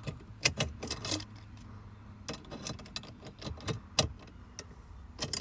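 Small metal parts and bolts of a blower motor assembly clicking and clinking as they are handled and fitted by hand, in irregular sharp clicks, the loudest about half a second in and at four seconds.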